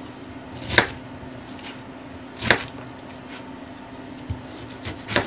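Kitchen knife cutting a pineapple into chunks, the blade knocking down onto a plastic cutting board: two separate chops a couple of seconds apart, then a few quicker, lighter ones near the end, over a steady low hum.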